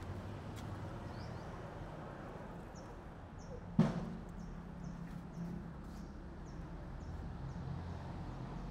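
Steady low outdoor hum with one sharp knock about four seconds in, and a faint high chirp repeating about twice a second through the second half.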